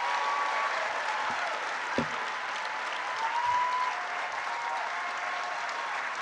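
A large audience applauding steadily, with one dull thump about two seconds in.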